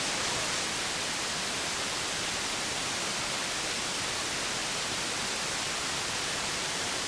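Radio receiver hissing with steady static on an open channel between transmissions, after a station has unkeyed.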